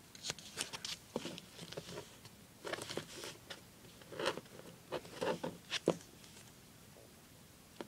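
Duct tape and a paper luggage tag being handled, folded and pressed down on a cutting mat: a run of short crinkling and rubbing noises that stops about six seconds in.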